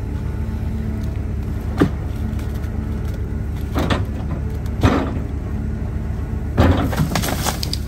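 Cat excavator's diesel engine running steadily, with sharp clanks and knocks about two, four and five seconds in and a quick cluster of them near the end.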